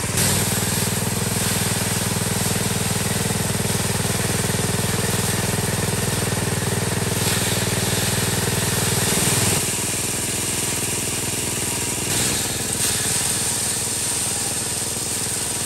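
Small motorized rice thresher running steadily as bundles of rice stalks are fed into its drum. Its deep hum eases about nine seconds in, leaving a lighter running sound.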